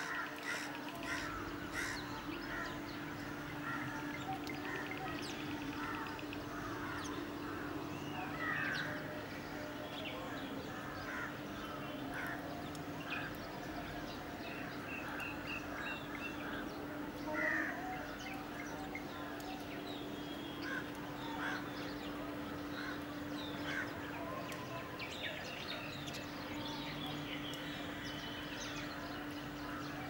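Birds calling: many short chirps and calls from several birds, scattered throughout, over a steady low hum.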